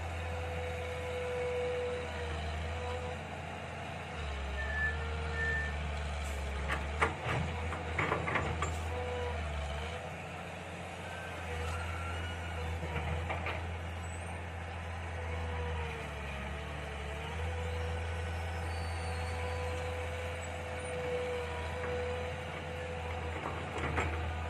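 Mini excavator working: a steady engine drone with a high steady tone over it that wavers slightly in pitch. Clattering knocks come about seven to nine seconds in, and again near the end.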